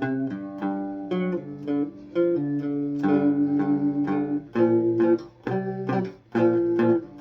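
A homemade three-string cigar box guitar, amplified, picked with a plectrum in single notes and short runs. A few seconds in, one note is picked rapidly over and over.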